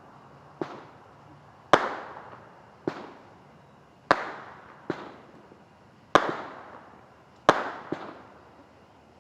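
Liberty Bell brand consumer fireworks going off: about eight sharp bangs, roughly one a second, each trailing off in an echo. Weaker reports alternate with louder ones.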